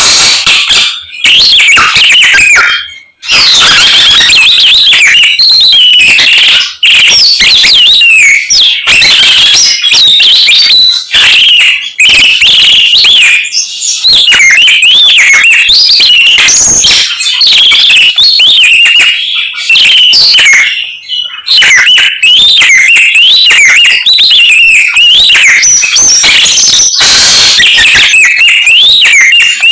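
A samyong songbird singing a loud, rapid run of whistled and chattering phrases full of mimicked calls of other birds, in long unbroken runs with a few brief pauses.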